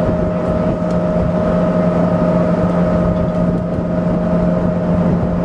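Boat engine running at a constant pitch, a steady drone over a dense rushing noise.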